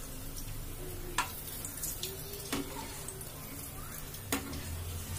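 Urad dal vadas deep-frying in hot oil in a pan: a steady sizzling hiss of oil around the puffing fritters, with three sharp clicks spaced through it.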